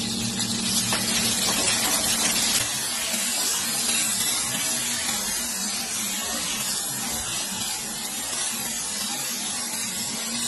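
Steady hissing and sizzling from a wok on a high gas flame as flames flare up out of the pan, with a steady low hum underneath.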